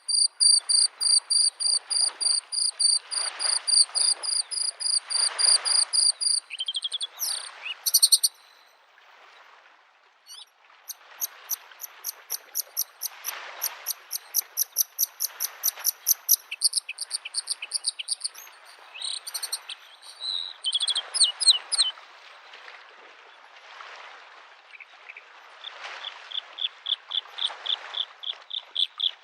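Bluethroat singing: long runs of fast, rapidly repeated high notes, broken by a pause about a third of the way in, then varied phrases and a lower repeated series near the end. Underneath, small lake waves lap at the shore in soft, irregular swells.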